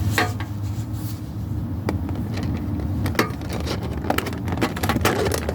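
Clicks and short rustles of a Pokémon collector's tin being opened and its contents handled, over a steady low hum.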